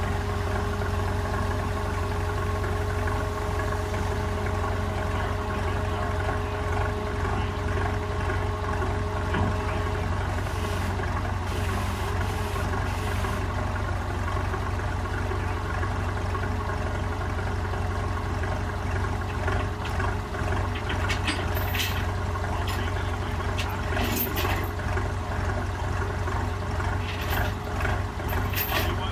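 Heavy diesel engine idling steadily, with several short sharp clanks and hisses in the last third.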